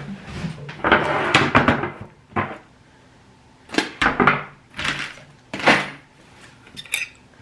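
A run of short knocks and rustles in separate bursts, about five or six of them with pauses between.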